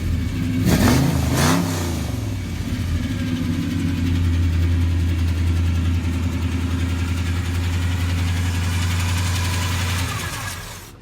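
1966 Chevrolet Chevelle's engine revved twice in quick succession, then running steadily. The sound fades out near the end.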